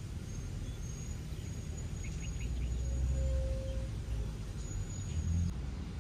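Outdoor ambience of a low steady rumble with birds calling: long thin high whistles, and a quick run of short chirps about two seconds in.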